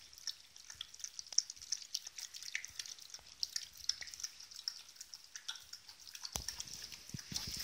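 Quick, irregular wet clicks and smacks of nursing puppies suckling at their mother, mixed with the mother dog eating wet food from a bowl. The sound grows fuller and lower about six seconds in.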